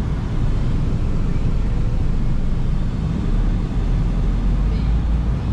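Road and engine noise inside a moving car's cabin: a steady low rumble that gets heavier about three seconds in.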